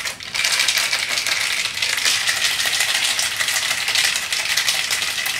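Ice rattling in a metal cocktail shaker shaken hard to chill the drink: a rapid, steady rattle with a brief break right at the start.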